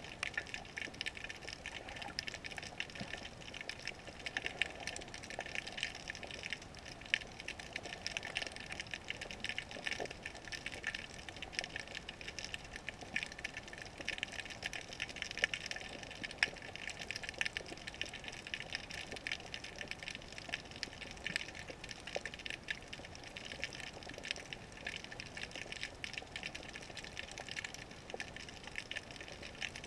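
Underwater sound heard through a GoPro's waterproof housing: a steady, dense crackle of tiny clicks and a muffled wash of seawater.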